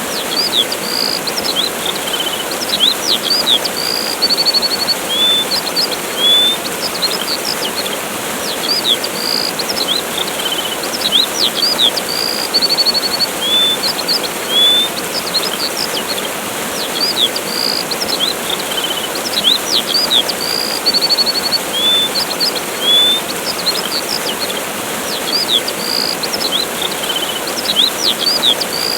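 Steady rush of a waterfall with small birds chirping over it: quick chirps, short rising whistles and rapid trills that keep recurring.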